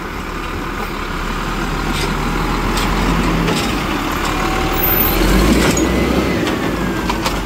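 Automated side-loader garbage truck's engine running as its hydraulic arm reaches out and grips a wheeled recycling cart. A whine rises and falls in pitch in the second half, with a few light clicks.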